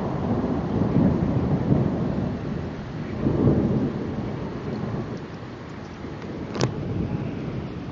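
Thunder rumbling, swelling twice in the first few seconds and then fading, over steady rain. A single sharp click comes near the end.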